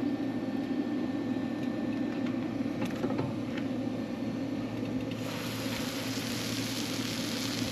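Steady low engine hum, like a small engine idling, with a few faint ticks; about five seconds in, a steady hiss starts and keeps on over the hum.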